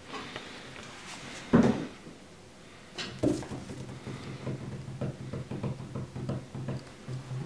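Dull bumps and rustling of a rumpled bedsheet. The loudest bump comes about a second and a half in, with another near three seconds. Then comes a run of small soft taps and rustles as a Bengal kitten steps across the sheet.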